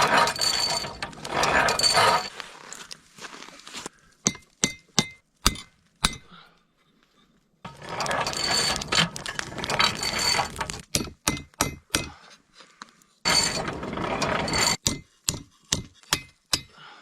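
Hand metalwork on a steel knife blank: stretches of rough metal-on-metal scraping alternate with runs of sharp metallic clinks and taps, some of them ringing briefly.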